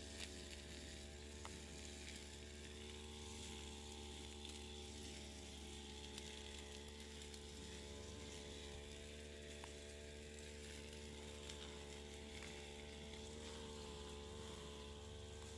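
Faint steady hum with a layer of hiss over it, unchanging throughout, and a couple of faint clicks.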